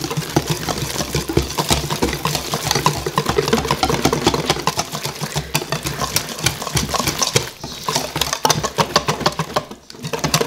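Wire balloon whisk beating waffle batter in a stainless steel bowl: a fast, continuous rattle of the tines scraping and clicking against the metal, with two brief pauses near the end.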